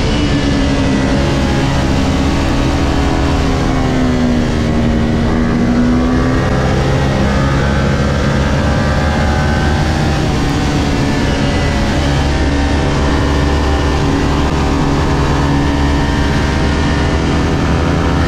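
Kawasaki Ninja 400's parallel-twin engine running hard under race load. The engine note falls about four seconds in, climbs again after six, and dips once more near ten seconds as the revs change through the corners.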